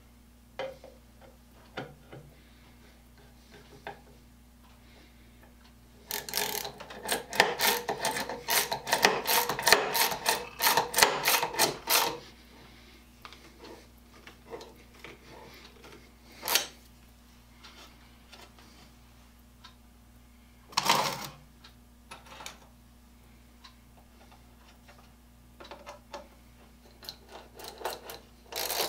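Spiral-ratchet push drill pumped down into a wooden board, a rapid ratcheting clatter for about six seconds. After a pause come a single short knock and a few scattered clicks, and the pumping clatter starts again near the end.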